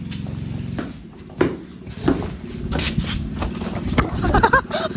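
Mini bike's small engine running at a steady idle, with several knocks and rattles over it.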